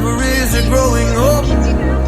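Background song with a gliding melodic lead line over a steady bass.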